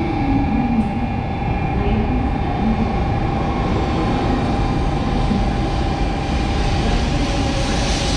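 Shinkansen bullet train pulling into the platform and rolling slowly past at close range: a steady rumble of wheels on rail under a continuous high whine, with a brighter hiss near the end.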